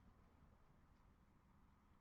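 Near silence: faint low background hum and hiss.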